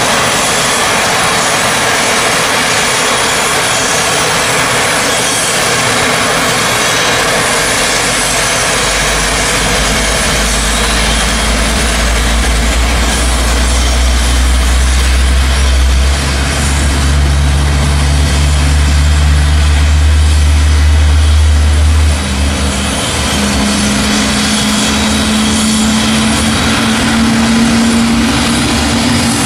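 Loud, steady jet aircraft noise as an Airbus A330-900neo is pushed back by a diesel tow tug. About nine seconds in, a deep engine drone joins in as the tug works under load; near twenty-two seconds it gives way to higher steady tones.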